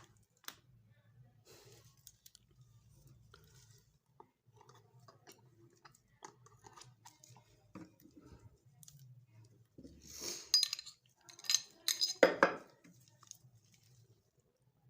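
Steel parts of a Zigana Sport 9mm pistol clicking and clinking against each other as the gun is handled, with a louder run of metallic clacks and rattles about ten to thirteen seconds in.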